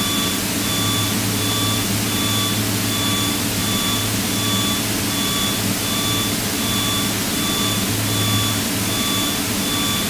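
Steady cabin drone of a Piper PA-32's six-cylinder piston engine and propeller in cruise: a constant low hum under an even rush of noise. A faint high tone pulses through it about one and a half times a second.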